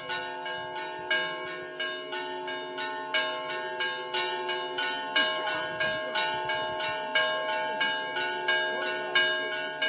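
Church bells rung by hand with ropes, struck in a quick, even rhythm of about three strokes a second. Several pitches ring on under the strokes: festive Easter-week chiming.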